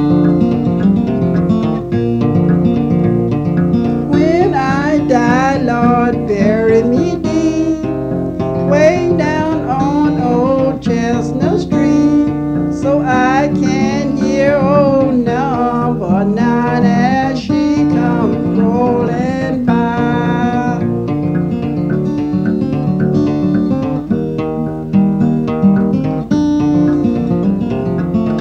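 Background music: acoustic guitar strumming, with a wavering melody line over it from about four seconds in.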